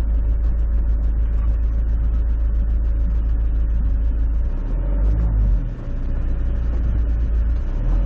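Motorhome crawling over a rough, rock-strewn gravel road: a heavy, steady low rumble from the engine and tyres, with a constant patter of small rattling ticks.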